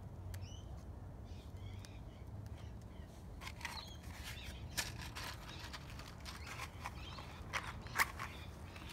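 Fire catching in a small kettle grill filled with rolled paper and kindling, crackling and popping irregularly and more densely from about three and a half seconds in, with one sharp pop near the end. Faint bird chirps in the first couple of seconds.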